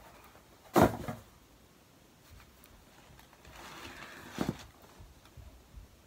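Cardboard shoe box and its packaging being handled: a sharp thump about a second in, then rustling and a second, softer knock about four and a half seconds in.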